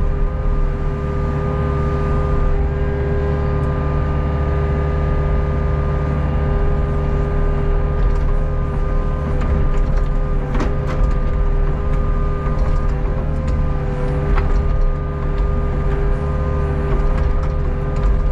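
Hitachi Zaxis 48U mini excavator's diesel engine running steadily as the boom and bucket work, with a steady whine over it. Two short knocks come near the middle.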